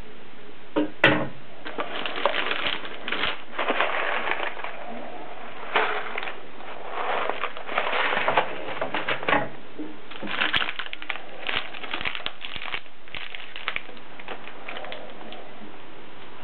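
A cast-iron weight set down on the metal pan of an antique balance scale with a sharp knock about a second in, then rustling and rattling in bursts as a cardboard box of dry pasta is handled and set on the scale's other pan.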